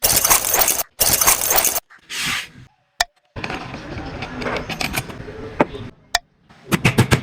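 Workshop building sounds in short snippets that start and stop abruptly: scraping and rustling noise with hard clicks and clinks of parts being handled. Near the end comes a fast run of sharp ticks, about eight a second.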